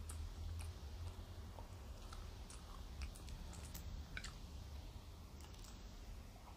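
Faint eating sounds: quiet chewing with scattered small clicks from the mouth and fingers picking at fried food, over a low steady hum.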